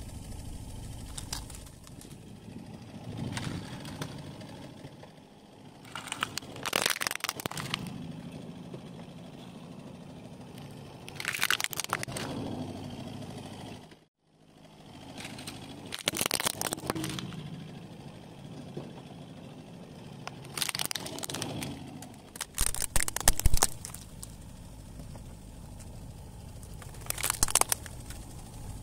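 Hard plastic toys cracking and snapping under a slowly rolling car tyre on asphalt, in several short bursts a few seconds apart, with a low steady rumble of the car between them. The sound drops out briefly about halfway through.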